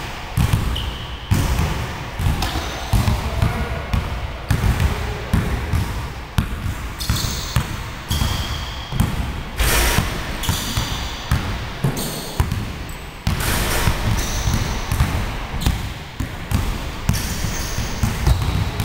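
Basketballs dribbled on a wooden gym floor: a continuous run of overlapping, irregular bounces, with short high squeaks of sneakers on the boards.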